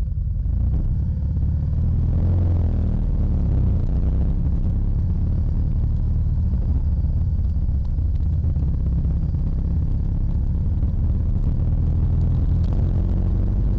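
Motorcycle riding at a steady pace: low engine drone and wind rumble picked up by a microphone clipped inside the rider's helmet.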